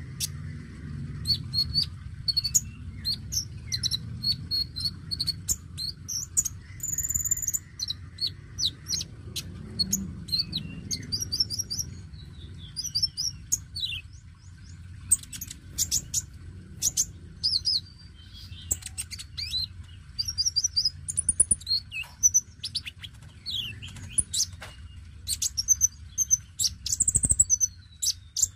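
Male van Hasselt's sunbird (konin) singing: a fast run of high, thin chirps and twittering trills in short phrases with brief pauses, over a steady low background hum.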